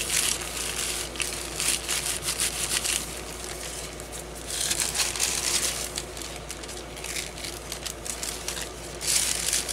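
Sheets of paint-covered deli paper crinkling and rustling as they are handled and peeled off a paper die-cut, in several bursts of crackly rustling, the busiest in the first three seconds.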